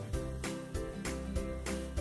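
Background music with a steady beat, notes striking about three times a second.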